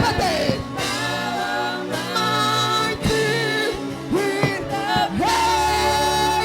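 Gospel worship music: singing in long held notes over a steady backing.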